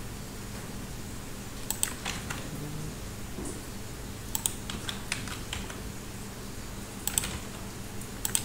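Computer keyboard keys clicking in short clusters every second or two as shortcut keys are pressed, over a low steady hum.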